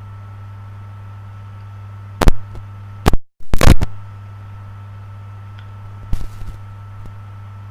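Steady electrical hum with a few loud, sudden knocks: one about two seconds in, a cluster around three to four seconds in with the sound cutting out completely for a moment, and softer ones about six seconds in.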